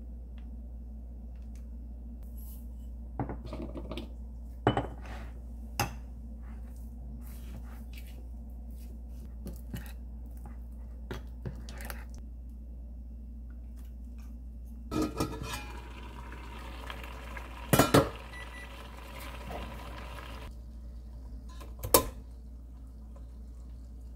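Metal spoon clinking and scraping against a small ceramic bowl while stirring thick ssamjang paste. There are scattered clinks at first, then a few seconds of continuous scraping past the middle, with the sharpest clinks in that stretch and once more near the end.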